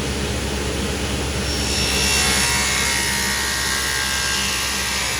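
Table saw running and cutting a cove into a white oak 1x4 fed at an angle across the blade: a shallow first pass about 1/8 inch deep. A steady motor hum lies under the cutting noise, which grows louder and brighter from about a second and a half in.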